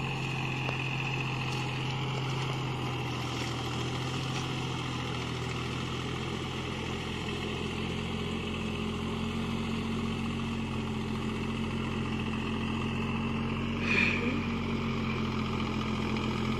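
Deutz-Fahr Agrolux 50 4WD tractor's diesel engine running steadily while it works through deep mud, with one short sharp sound near the end.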